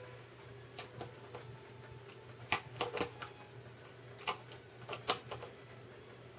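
About a dozen scattered light clicks and taps of small tools and metal hardware, bunched in the middle, over a faint steady low hum. They come from a wrench and the pot nuts and parts being handled while the guitar's tone and volume pots are tightened in place.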